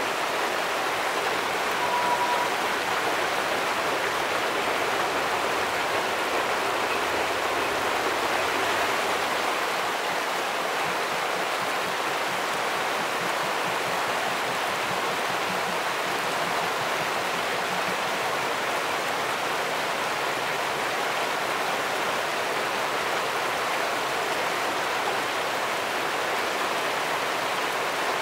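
Rushing river water, a steady even roar of flowing water over rocks. A single short high-pitched tone sounds about two seconds in.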